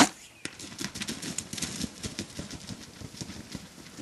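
A sharp, loud crack right at the start, then a dense run of quick irregular clicks, rustles and soft thumps: wild turkeys stepping and moving through dry brush and dead grass.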